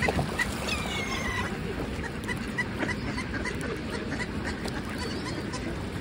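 Mixed flock of mallard ducks and gulls calling at close range, a run of short repeated calls over a steady rush of wings and water.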